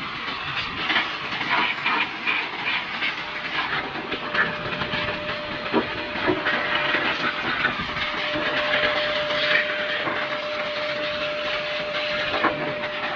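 Electric air blower running, a steady rush of air with a constant motor whine, blowing dust out of a fridge condenser, with scattered light clicks and knocks.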